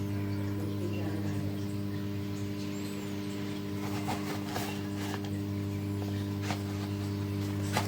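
Microwave oven running with a steady low hum, with a few sharp, scattered pops from popcorn kernels heating inside.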